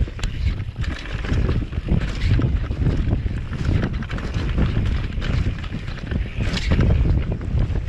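Wind buffeting a downhill mountain bike's action camera at speed, a constant low rumble over the rattle and knocks of the Commencal V4.2 downhill bike running over rough dirt. There is a brief hiss about six and a half seconds in.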